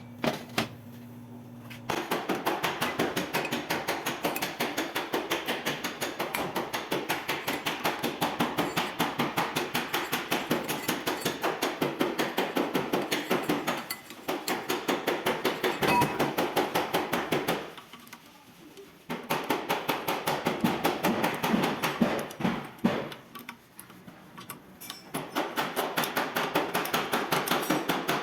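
Steady, rapid hammer blows on metal, about four a second, in three runs broken by two short pauses.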